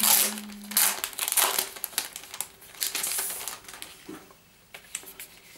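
Thin clear plastic packaging sleeve crinkling and rustling as it is handled and pulled open, in quick loud bursts for about the first three seconds, then a few light clicks and taps.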